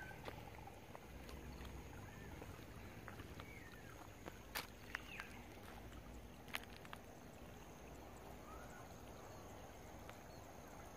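Quiet rice-paddy ambience: a low steady rumble of wind on the microphone, a thin steady high tone, and a handful of faint short bird chirps. A few sharp clicks sound near the middle.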